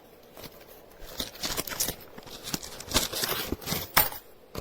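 Plastic packaging crinkling and tearing in a run of irregular bursts with sharp clicks, as the scope's mounting hardware is worked out of its packing; it starts about a second in and the loudest click comes near the end.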